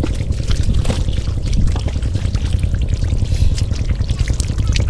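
Water splashing and trickling, with many small irregular splashes and drips over a steady low rumble.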